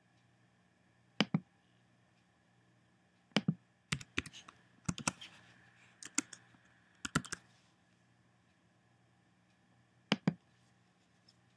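Computer mouse clicks and keyboard keystrokes in scattered short groups, with a last pair of clicks about ten seconds in.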